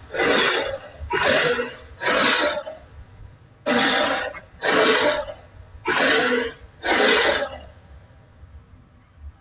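Gorgosaurus dinosaur sound effect: a series of short, harsh, raspy vocal bursts, each about half a second long, three in quick succession, then after a pause four more.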